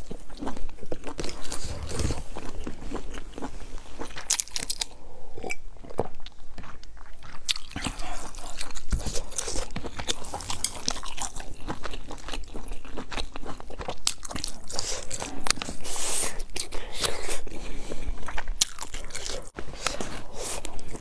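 A person chewing and biting grilled sausage close to the microphone: a long, uneven run of small wet clicks and smacks from the mouth.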